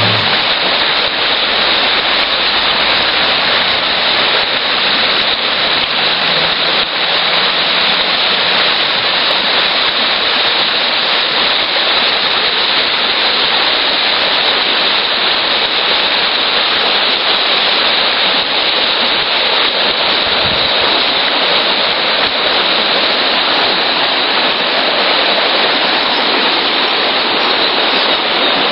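Shallow river current rushing over stones: a steady, loud, even rush of running water.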